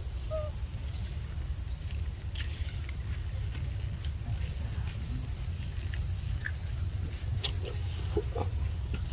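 Forest ambience: a steady insect chorus holding a continuous high buzz, over a constant low rumble, with a few faint short chirps and a couple of brief clicks near the end.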